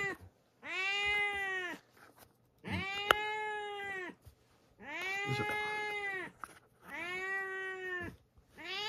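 Domestic cat meowing repeatedly: four long, drawn-out meows, each rising then falling in pitch, with short pauses between them, and another one starting at the very end.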